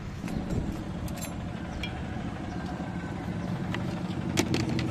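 A motor vehicle engine running close by, a steady low rumble that grows a little louder. Over it, several sharp clicks of a knife cutting through lemons onto a chopping board, the loudest about four and a half seconds in.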